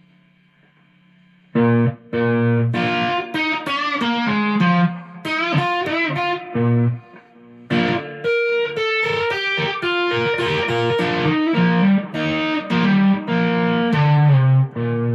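Telecaster electric guitar playing a single-note lead lick, starting about a second and a half in, with notes bent up and down in pitch, a short break midway, and a low note left ringing at the end.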